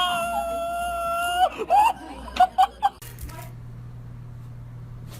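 An animal's long cry held at one pitch for about a second and a half, followed by a few short yelps. The clip then cuts to a quiet low hum about three seconds in.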